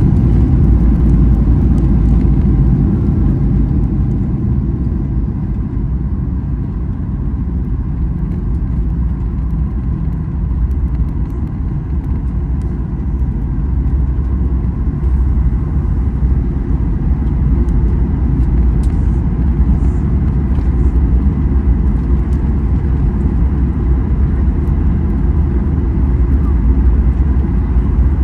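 Steady low rumble inside the cabin of a Boeing 737-800 airliner, from its engines and the airframe.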